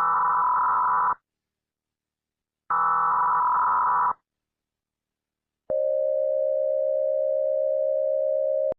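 Mock emergency alert tones: two buzzing, modem-like data bursts of about a second and a half each, separated by silence, in the manner of EAS header bursts, then a steady single-pitched alert tone for about three seconds that cuts off abruptly.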